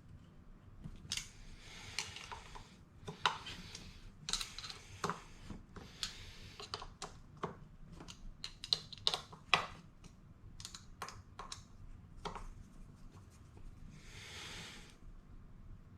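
Hand work on a scooter wheel: irregular clicks, taps and light knocks of tools and metal parts, with several short scraping, rubbing sounds.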